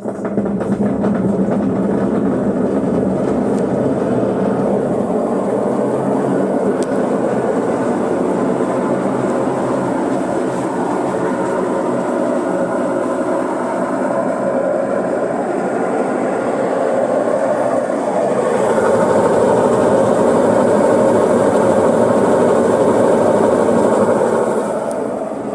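Brastemp BWL11 washing machine spinning with a loud, continuous mechanical noise that starts abruptly, grows louder about 18 seconds in and eases near the end. The noise is diagnosed as a fault in the machine's transmission (gearbox).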